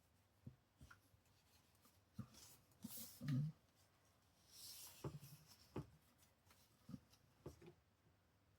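Faint paper handling: short rustles and swishes of paper being slid and folded, with soft taps and a dull thump on the work table, as a narrow paper hinge is folded and creased.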